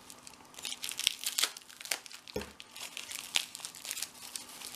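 Packaging crinkling and tearing as a lock is unwrapped by hand: a rapid, irregular run of sharp crackles, with one dull knock about halfway through.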